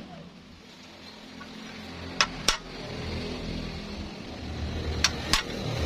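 Hammer striking a center punch on a steel rectangular tube held in a bench vise, marking the spot for a drilled hole: two pairs of sharp metallic taps, the second pair about three seconds after the first, over a low steady rumble.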